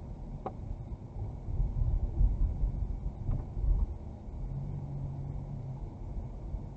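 Low, uneven outdoor rumble with stronger swells in the middle, and a steady low hum for about a second and a half past the midpoint.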